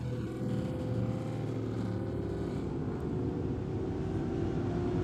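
Sport motorcycle engines running hard through a corner, one engine's note rising slowly and steadily as the bike accelerates away.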